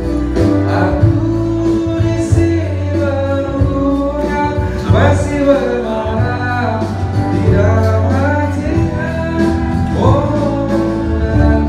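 A man singing an Indonesian pop song live into a microphone over amplified backing music with a steady bass line, played through a PA speaker.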